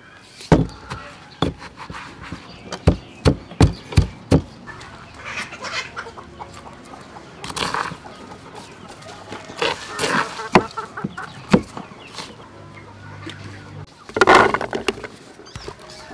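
A pestle pounding in a stone mortar, a quick series of sharp knocks in the first few seconds. Chickens clucking, with a louder call near the end.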